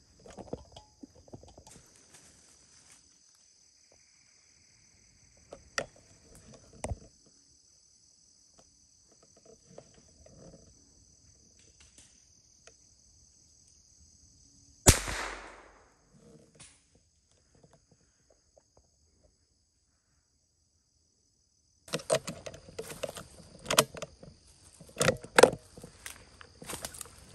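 A single gunshot about fifteen seconds in, a sharp crack with a short echoing tail, over a steady high drone of insects. From about 22 seconds, a run of crunching and rustling in dry leaf litter.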